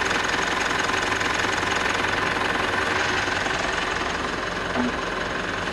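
Mitsubishi Triton engine idling steadily, kept running so the automatic transmission's fluid level can be checked at the check plug. It gets slightly quieter after about four seconds.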